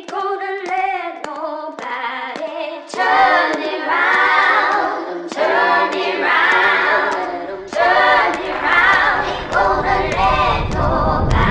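Music: voices singing in harmony like a choir, a cappella, in phrases of a second or two. It grows louder and fuller about three seconds in.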